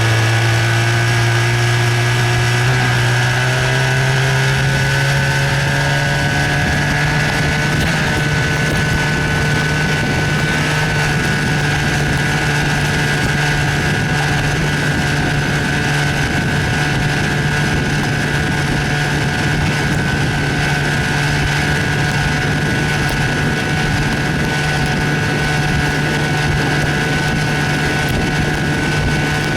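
1970 Evinrude 25 hp Sportster two-cylinder two-stroke outboard motor running under way. Its pitch climbs over the first few seconds as it speeds up, then holds steady. The owner says the motor has a high-speed miss and a badly leaking exhaust baffle gasket.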